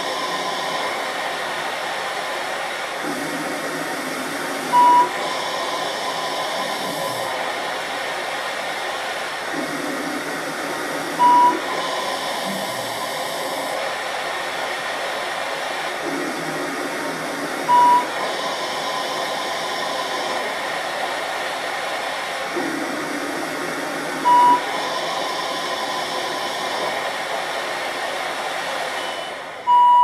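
Cough assist machine (mechanical insufflation-exsufflation device) working through a face mask, forcing air into the lungs and then pulling it back out: a steady rush of blown air that changes tone for about two seconds at regular intervals. A short high beep sounds about every six and a half seconds, once per breath, for five breaths in all.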